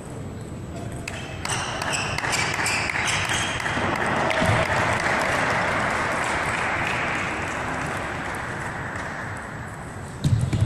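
Table tennis ball clicking off bats and table in a short rally, then a stretch of applause that swells and fades away in a large hall.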